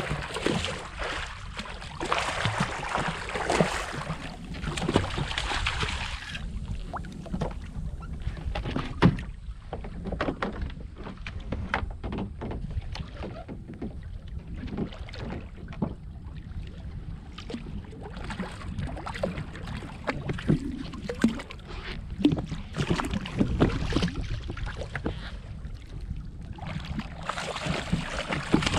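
Water sloshing and lapping against a fishing kayak's hull, with many scattered knocks and clicks of gear and tackle on the hull, while a hooked yellowtail is fought alongside. A rushing hiss fills the first six seconds or so.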